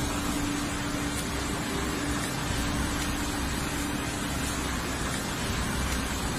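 Fast floodwater rushing in a steady, unbroken torrent.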